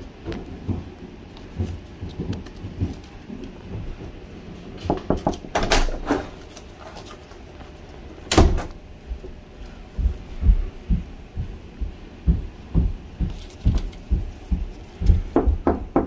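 Irregular knocks, bumps and clicks at a door, mixed with handheld camera handling noise. There is a cluster of clicks about five seconds in, a single sharp knock about eight seconds in (the loudest sound), and a run of dull bumps near the end.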